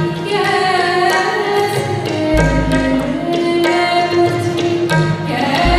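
Shabad kirtan: gurbani sung to harmonium, with tabla strokes throughout and the deep bass drum of the tabla booming about two seconds in and again near the end.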